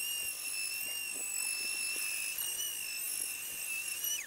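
Rotary tool running at high speed, spinning a chrysoprase cabochon against a fine-grit sanding disc: a steady high whine with overtones that dips slightly and cuts off sharply near the end.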